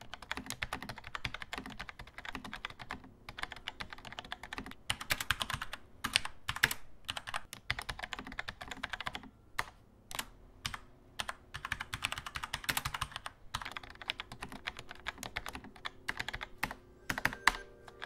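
Typing on a SteelSeries Apex M800 mechanical keyboard with linear, non-clicky QS1 switches: runs of fast, soft key strokes broken by short pauses, growing sparser near the end. The switches are very quiet for mechanical switches.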